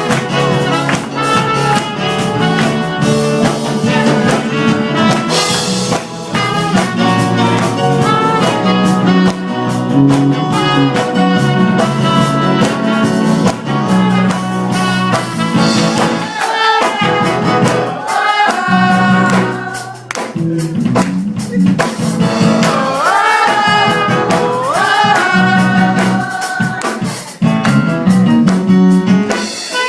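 Music playing: jazz-like ensemble with horns and a drum kit over a repeating low bass line.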